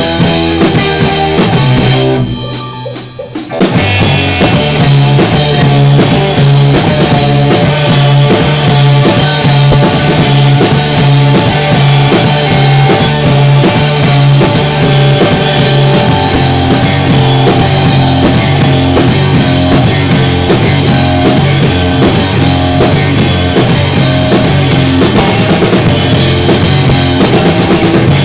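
Rock band playing loud in rehearsal, drum kit and guitar, with a brief break about two seconds in before the full band comes back in.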